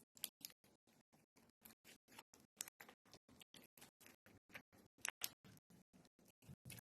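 Faint, evenly spaced ticking, about five or six clicks a second, with a few louder clicks.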